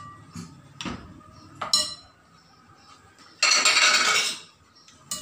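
Glass dish and metal spoon clinking against a ceramic bowl a few times, with a short ringing to the clinks. Past three seconds in comes a louder burst of rough noise lasting about a second.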